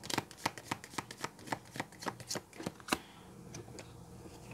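A deck of gold-edged oracle cards being shuffled by hand: a rhythmic patter of card slaps, about four a second, ending with a sharper slap about three seconds in.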